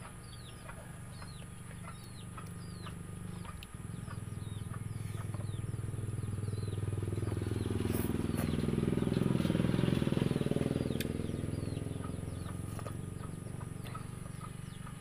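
An engine passing by: a low hum that swells over several seconds to its loudest a little past the middle, then fades away. Short high chirps repeat throughout.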